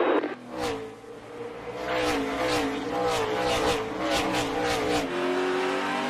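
NASCAR Cup Series stock car's V8 engine running hard on track, its pitch climbing slowly and then dropping about five seconds in. A run of sharp pops sounds over it between about two and five seconds in.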